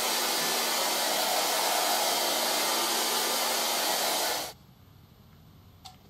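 Hand-held hair dryer blowing with a steady rush of air, cutting off abruptly about four and a half seconds in. A faint click near the end.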